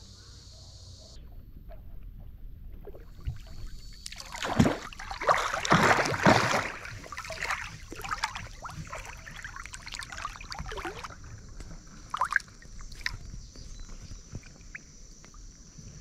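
Water splashing and sloshing around a swimmer close to the microphone. The loudest splashes come about four to seven seconds in, followed by lighter splashes and lapping.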